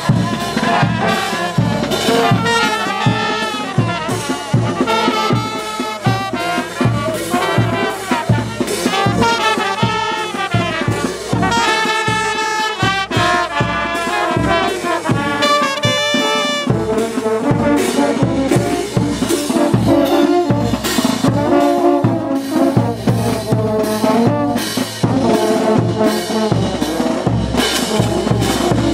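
Brass band of trumpets and trombones playing a melody over a steady drum beat.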